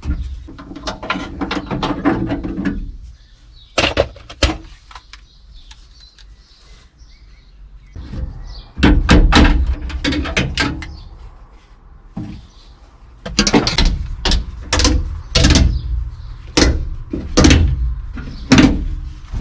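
Sharp knocks and clunks of a car door being worked on during a strip-down. They come in bursts with quieter gaps, ending in a run of strong knocks roughly every half to one second.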